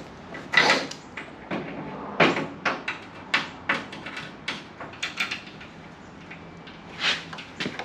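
Irregular metallic knocks, clicks and short scrapes of a steel Z bar and clamps being handled and tightened against the floor pan.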